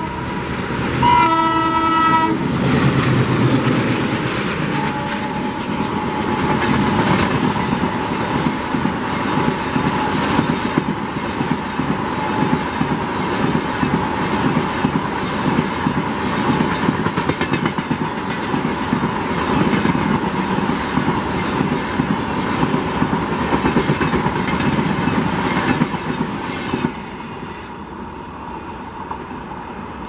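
Twin ALCO WDG3A diesel locomotives give a short horn honk about a second in. They then pass close by, hauling up a gradient, and their LHB coaches clatter over the rail joints in a long continuous rumble. The noise drops off sharply near the end as the train moves away.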